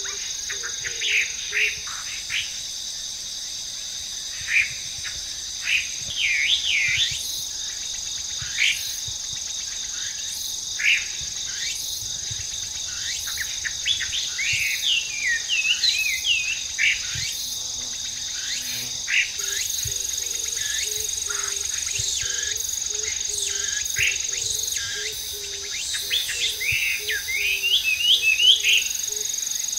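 Chinese hwamei singing: separate whistled notes at first, then quick runs of rising and falling warbled notes around the middle and again near the end. Behind it runs a steady high buzzing of insects.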